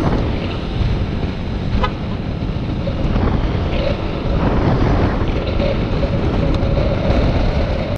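Wind buffeting the camera microphone on a moving motorcycle at about 50 km/h, with the engine running underneath and getting slightly louder as the bike gains a little speed.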